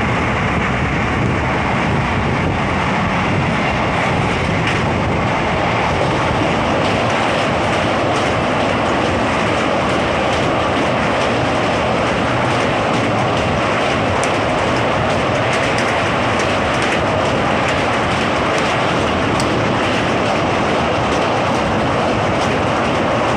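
Passenger train running at speed, heard from inside a coach: a loud, steady noise of wheels on rail.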